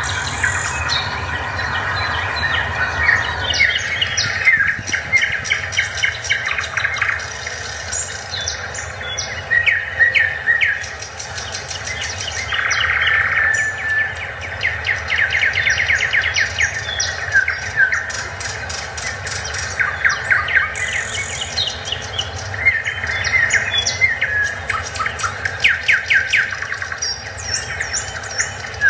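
Several birds chirping and trilling in quick repeated series, over a steady low hum.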